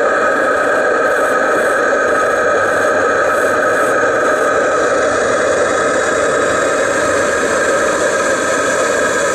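Model boat's Krick marine steam plant, built by Regner, with a double-cylinder oscillating engine, running while the boat is stationary: a steady hissing rush with several held tones above it.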